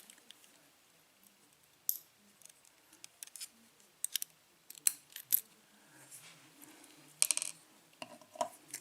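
Light metallic clicks and ticks, irregular and scattered, of small brass lock pins and tools being handled while a pin-tumbler lock is taken apart.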